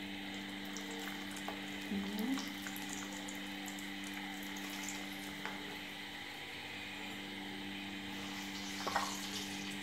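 Cassava vada patties frying in hot coconut oil in a shallow pan: a steady sizzle with fine crackling as the patties are slid in one after another.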